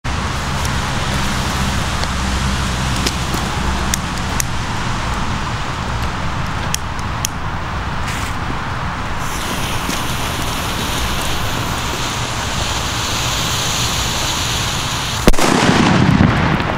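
An Achtung TC-5B firecracker's lit fuse hisses for several seconds. About fifteen seconds in, the firecracker goes off with one loud bang, followed by a low rumbling echo.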